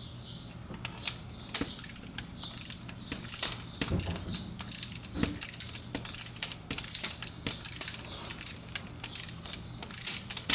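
A torque wrench ratcheting in a run of short metallic strokes as clutch bolts are tightened one after another in a set sequence.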